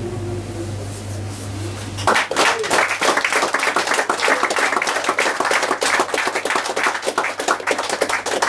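The last held note of the song dies away over a steady low hum, which cuts off about two seconds in. Audience clapping and applause then breaks out and continues.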